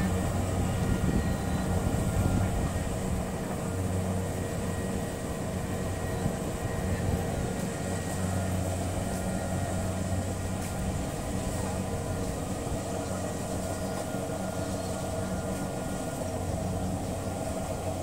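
Kubota DC-70 combine harvester's diesel engine running steadily under load while it cuts rice, a constant hum.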